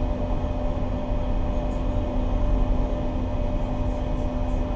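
Towboat's diesel engines running under way: a steady low drone with a constant hum.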